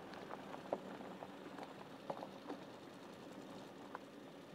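Faint sound of a 2018 Porsche Cayenne Turbo rolling slowly along a dirt track: scattered clicks and pops of stones under the tyres over a low steady hum.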